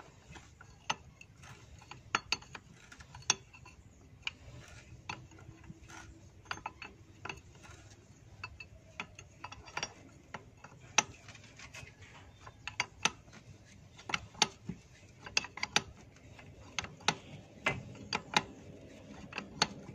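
A metal wrench clicking and scraping on a nut on a rusted threaded rod, in many sharp, irregular clicks, as a stiff, seized nut is worked loose.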